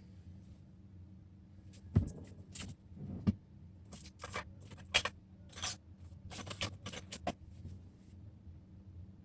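Small hand tools clicking, knocking and scraping in a series of short irregular strikes, the loudest about two, three and five seconds in, over a steady low hum.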